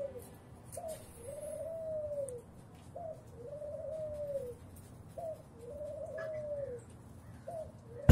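A dove cooing over and over, about every two seconds: each coo is a short rising note followed by a longer note that arches and falls away.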